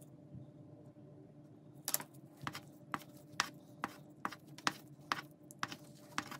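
Paint-covered resin die rubbed back and forth on a paper towel with gloved fingers, wiping excess acrylic paint off its faces. It starts about two seconds in as a run of short scrubbing strokes, roughly two a second.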